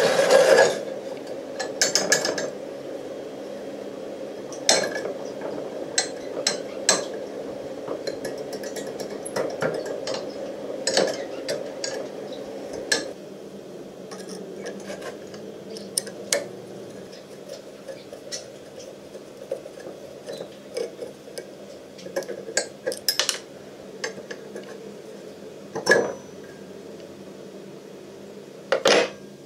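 Irregular metal clinks and clanks as the steel lever, linkage and pivot bolt of a homemade reloading press are handled and unscrewed with a screwdriver, over a steady background hum. The loudest clank comes at the start, and there are more heavy knocks near the end.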